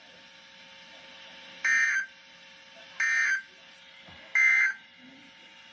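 Emergency Alert System end-of-message data tones: three short bursts of two-tone SAME digital data about a second and a half apart, signalling the end of the warning message.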